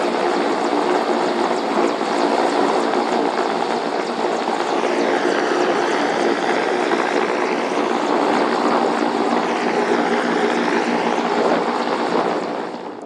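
Mil Mi-8 helicopter running steadily, its twin turboshaft engines and rotor loud and constant, with a slowly sweeping whoosh in the upper range partway through. The sound drops away sharply near the end.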